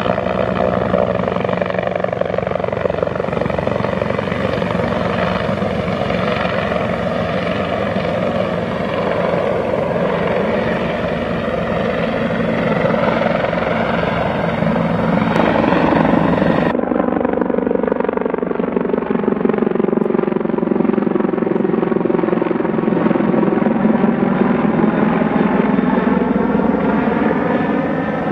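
Bell 412 twin-engine helicopter with a four-blade main rotor flying past, its rotor and turbines running steadily. About two-thirds of the way through the sound cuts to another pass, where the tone slowly shifts as the helicopter moves by.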